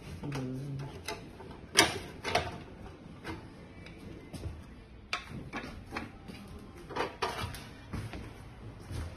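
Irregular clicks and knocks of a weighing filling machine's parts being handled and taken apart by hand, about a dozen in all, the loudest about two seconds in.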